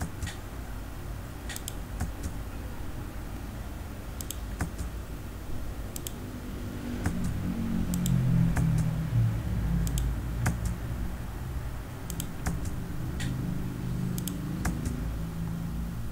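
Scattered clicks of a computer mouse and keyboard, roughly one a second, as sketch lines are selected and deleted. A low hum swells in the background from about seven seconds in.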